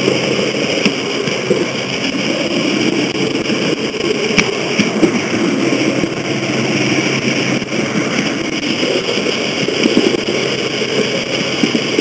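H0-scale model train running along the track, heard from a camera riding on it: a steady mechanical whir of the drive, with a few sharp clicks.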